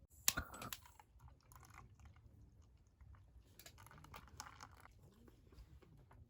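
Scattered small clicks, taps and crunches of food and tableware being handled, with the sharpest click about a quarter of a second in and another cluster around the middle.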